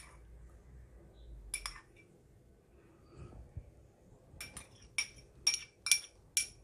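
A metal spoon clinking against a small bowl as saffron milk is scraped out of it: one clink at the start, another about a second and a half in, then a quick run of about six clinks in the last two seconds.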